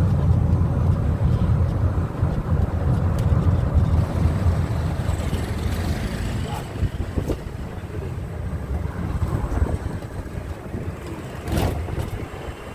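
Rumble of an open electric buggy under way: low road and wind noise, easing off somewhat after the middle, with a sharp knock near the end.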